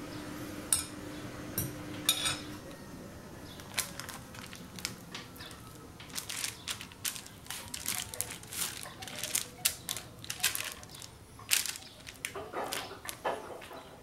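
A spatula scraping and tapping and parchment paper crinkling as soft parsley butter is spread along the paper: a run of quick, irregular clicks and scrapes, sparse at first and busier in the second half.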